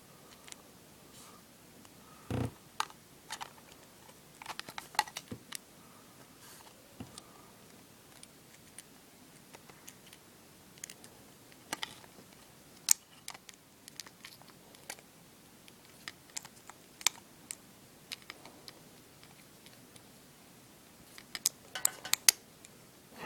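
Scattered small clicks and taps of iPod parts and small tools being handled, with a dull knock about two seconds in and a quick run of clicks near the end.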